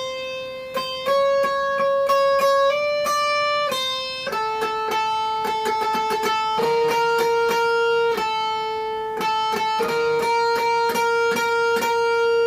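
Electric guitar played through a breadboarded Badass Distortion circuit clipped by a 1N4004 silicon diode and a yellow LED. Single notes are picked and held with a distorted tone, the pitch stepping up early on, then dropping and staying lower with repeated picking. This clipping setting gives clean sound when picked softly and more compression when picked hard.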